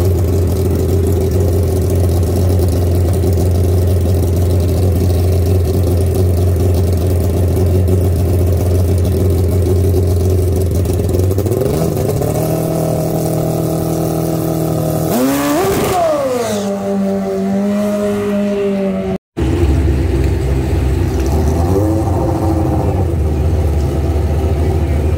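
Motorcycle engine idling low and steady, then revving up about twelve seconds in and holding the higher pitch. A sharper rev follows a few seconds later, its pitch falling back and settling. After a brief dropout the low idle resumes, with a small rev near the end.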